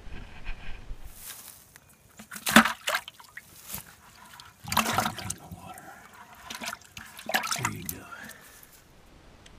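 A bass splashing in a plastic bucket of water, in three short bursts a couple of seconds apart.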